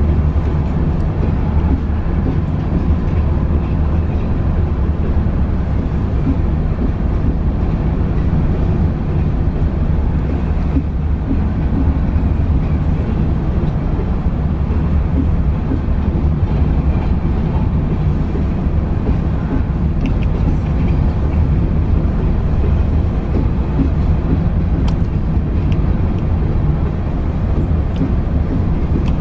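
Covered hopper cars of a freight train rolling past at steady speed: a continuous low rumble of steel wheels on rail with a few faint clicks over the rail joints, heard from inside a car's cabin.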